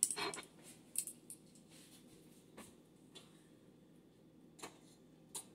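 A few light, separate clicks and taps of a serving spoon against a metal cooking pot, with quiet gaps between them.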